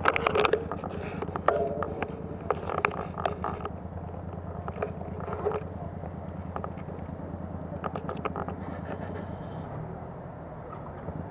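A motor vehicle engine idling steadily, with scattered clicks and knocks in the first few seconds and again about eight seconds in.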